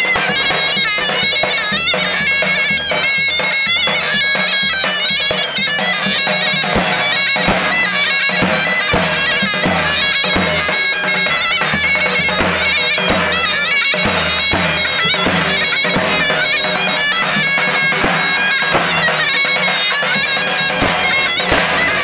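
Zurna and davul playing loud live folk dance music: the zurna carries a continuous reedy melody over the steady, regular strokes of the davul bass drum.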